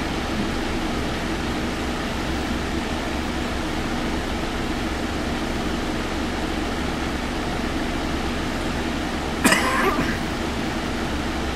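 Steady hum and hiss of idling cars, with a short, sharp noise about nine and a half seconds in.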